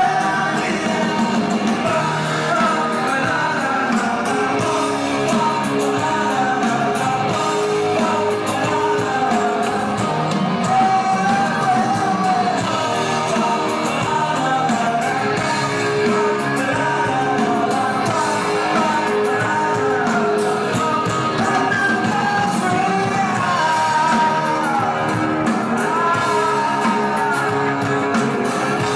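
Live rock band playing a song: electric guitars, bass guitar and drum kit with a lead vocal sung at the microphone, heard from the audience in a large hall.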